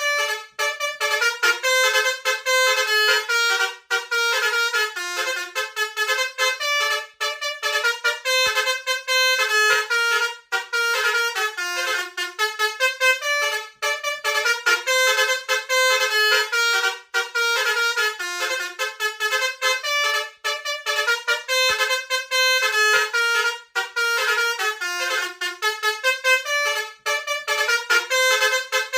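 Basuri multi-tone 'telolet' bus horn playing a fast melody of short notes, the same tune repeating about every three and a half seconds with a brief break between phrases.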